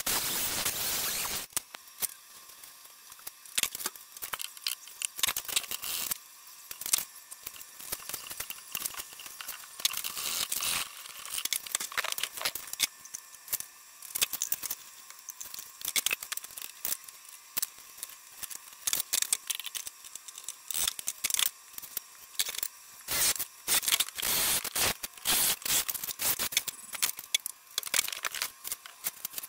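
A cordless angle grinder running for about the first second and a half, then cutting off abruptly. After that, scattered sharp clicks and short scrapes of hand work at a workbench.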